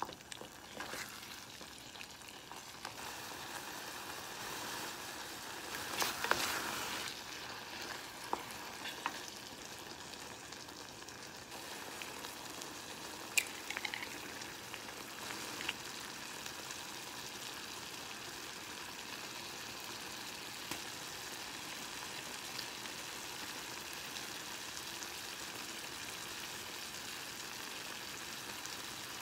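Tomato sauce with sausage and vegetables sizzling steadily in a saucepan. A wooden spatula stirs and scrapes through it in the first several seconds, loudest about six seconds in, and a few sharp taps come near the middle as eggs are cracked into the sauce.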